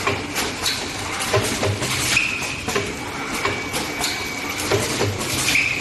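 Automatic ampoule blister packing machine running: a rapid, repeating clatter of mechanical clicks and knocks. A brief higher tone and a pair of low thumps return about every three and a half seconds with each machine cycle.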